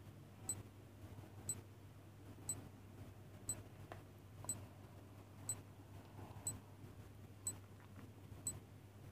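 Clock-style ticking of a countdown timer, one faint high tick each second, over a low steady hum.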